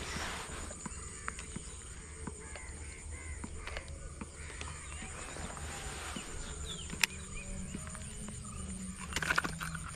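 Birds calling in open country: scattered short calls, with a louder, harsher burst of calls near the end and one sharp click about seven seconds in.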